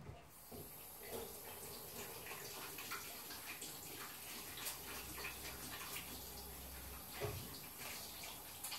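Steady hiss of running water, with scattered small drips and clicks, starting suddenly just after the start.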